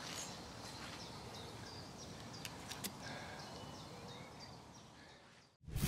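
Quiet outdoor ambience with faint, short bird chirps over a steady background wash. Near the end the sound cuts out and a loud rushing swell begins.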